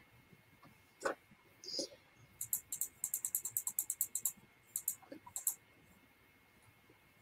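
Clicking at a computer, heard over a video-call microphone: a few scattered clicks, then a fast run of about a dozen in two seconds, and a few more after it. A faint steady high whine sits underneath.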